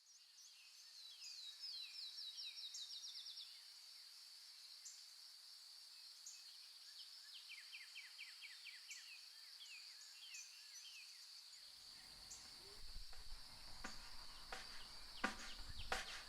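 Faint outdoor ambience: a steady high-pitched insect drone, with a bird singing short runs of quick falling notes twice. From about three-quarters of the way in come a low rumble and scattered clicks.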